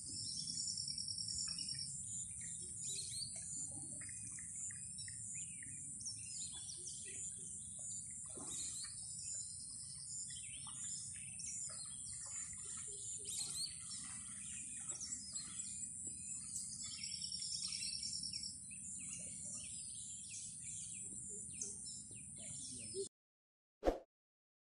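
Wild birds chirping and calling over a steady high-pitched drone, with a rapid buzzing trill at the start and again about 17 seconds in. The sound cuts off shortly before the end, and a brief blip follows.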